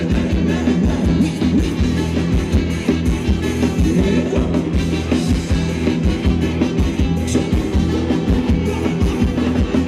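Live band playing upbeat Thai ramwong dance music, with a steady drum beat and a singing voice.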